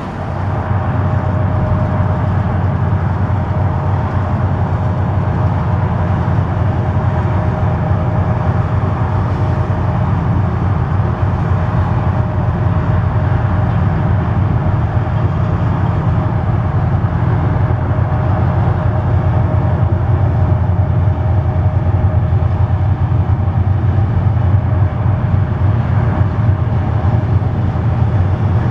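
Diesel locomotive running close by: a steady heavy engine drone with a faint steady whine above it, swelling louder in the first second.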